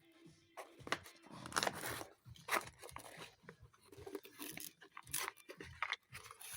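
Small parts package being torn open and handled: tearing and crinkling, with scattered clicks.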